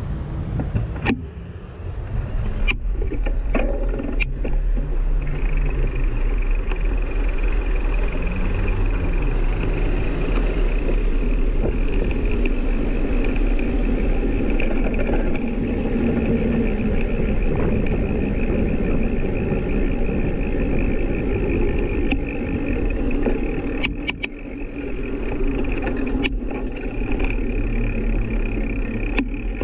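Steady road and vehicle noise with a deep rumble. An engine note rises and falls in pitch in the first several seconds, and a few sharp clicks and knocks come near the start and again near the end.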